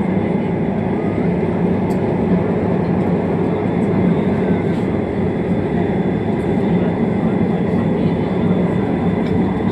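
Steady running noise heard from inside a light rail train carriage moving between stations: an even low rumble with a faint steady high whine.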